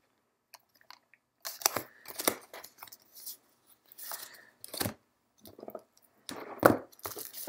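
Stiff, thick game cards being picked up, slid over one another and set down on a table: a run of irregular rustling scrapes and light slaps, the loudest near the end.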